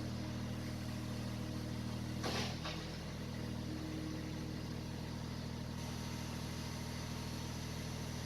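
Skid steer engine running steadily, with a short burst of noise about two seconds in.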